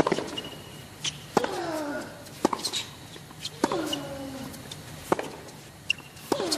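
Tennis rally on a hard court: six racket-on-ball strikes, one every 1.1 to 1.5 seconds, as the ball goes back and forth. Every other strike comes with a player's short grunt that falls in pitch.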